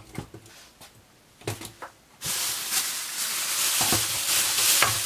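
Toy packaging being handled: a few light clicks and taps, then from about two seconds in a steady rustling, rubbing noise with small crackles.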